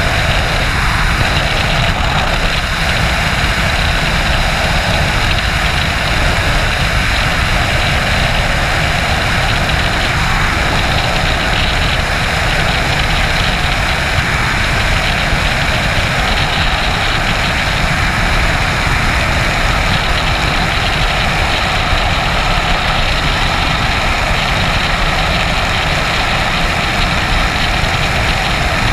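Steady, loud rush of freefall wind buffeting the camera's microphone.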